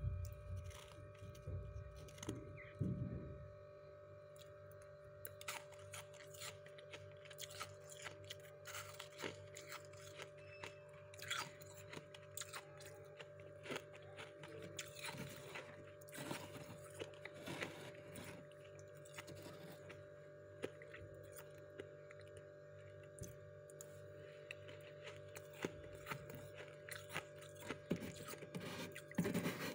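Faint, irregular crunching of soft freezer frost, denser in the first few seconds, over a steady appliance hum.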